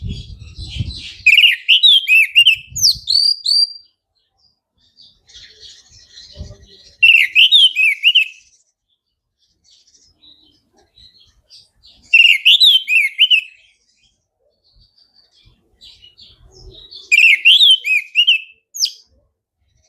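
Orange-headed thrush singing: four loud phrases of quick, rapidly rising and falling warbled notes, each lasting a second or two and separated by pauses of a few seconds. A few low thumps sound between phrases.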